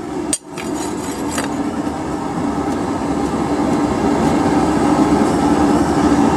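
Steady rushing hum of a coal forge's air blower, running without a break and swelling slightly near the end.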